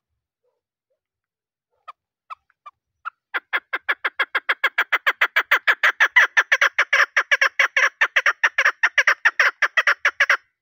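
Female chukar partridge calling: a few scattered single notes, then from about three seconds in a fast, even run of short notes, roughly six a second, that stops just before the end. It is the call that draws male chukars to answer, as used by hunters.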